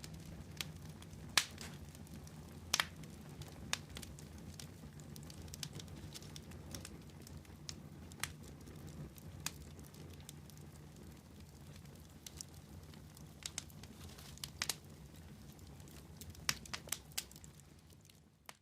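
Campfire logs burning and crackling: irregular sharp snaps and pops over a low steady background, fading out at the very end.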